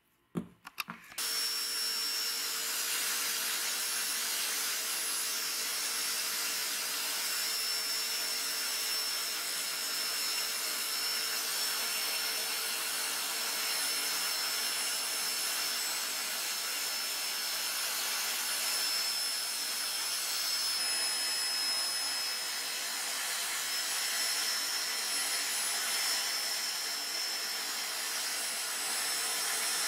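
A few light metallic clicks, then from about a second in a motor-driven wire cup brush runs steadily as small rusty screws are held against it and scrubbed clean.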